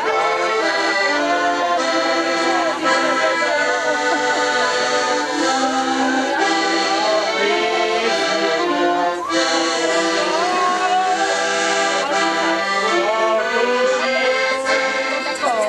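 Accordion playing a traditional folk tune, a melody moving over held chords.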